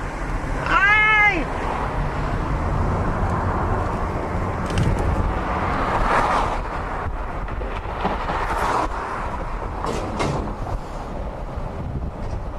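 Steady car road and wind noise heard inside a moving car, with one short high call that rises and falls in pitch, like a meow, about a second in.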